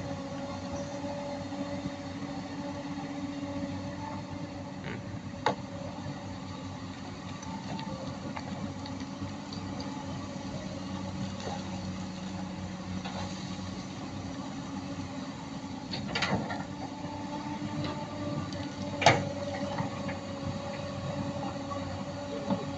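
Several crawler excavators' diesel engines and hydraulics running as they dig, a steady mechanical hum with a few sharp knocks, the loudest late on.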